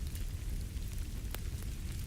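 Crackling fireplace: a wood fire burning with scattered small pops over a low steady rumble, one sharper pop about two-thirds of the way through.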